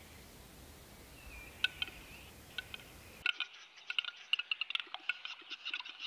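Male western capercaillie displaying: a few spaced dry clicks, then, from about three seconds in, a fast run of clicks and scratchy grinding notes. This is the whetting phase of the song, during which the male cannot hear.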